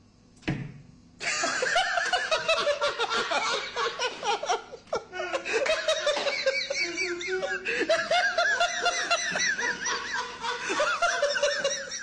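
A short thump about half a second in, then a long bout of hearty, continuous laughter.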